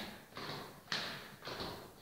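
Footsteps going down stairwell stairs at a steady pace of about two steps a second, each a short thud.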